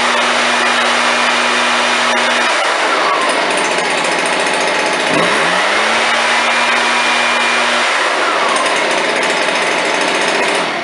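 Stihl BR420 Magnum backpack blower's two-stroke engine running with the fan rushing air, throttled up to full speed and back to idle twice. It is held high at first, drops about two and a half seconds in, rises again about five seconds in, and falls back about three seconds later. This is a throttle-response test on the freshly resealed engine, and the response is good.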